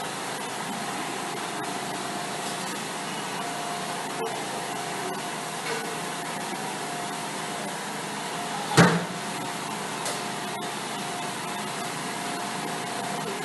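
Steady whirring machine noise with a faint hum, like a fan or air conditioner, and one sharp knock about nine seconds in.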